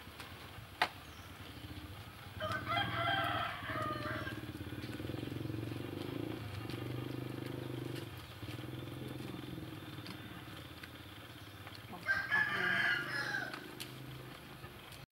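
A rooster crows twice, about two and a half seconds in and again about twelve seconds in, each crow lasting about a second and a half, over a steady low hum.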